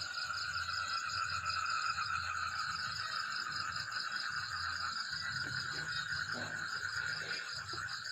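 Steady chorus of calling insects: a fast-pulsing high trill over a continuous lower tone, with a few faint clicks in the second half.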